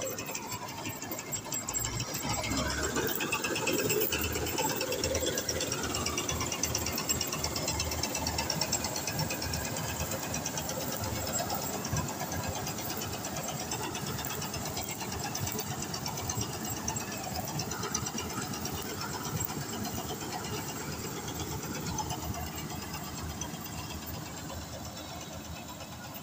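Kartar Crop Cruiser combine harvester running while it cuts a standing crop. Its cutting and threshing mechanisms give a steady, fast mechanical clatter over the engine, which slowly grows fainter in the second half.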